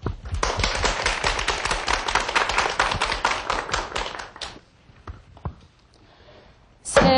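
Studio audience clapping for about four seconds, then fading out. Near the very end a woman's voice begins a loud held sung note.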